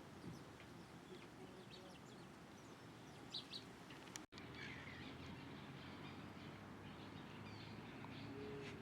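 Faint, scattered bird chirps and short calls over a steady low background hum, with a sudden brief drop-out just before halfway.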